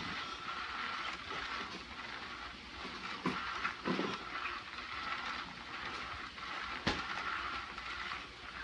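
Small motor of a battery-powered cat toy whirring steadily under a fabric mat, with a few soft knocks about three, four and seven seconds in.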